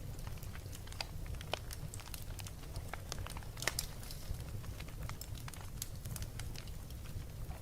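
Wood fire burning in a fireplace: irregular crackles and sharp pops over a steady low rumble of the flames, with a small cluster of louder pops a little past the middle.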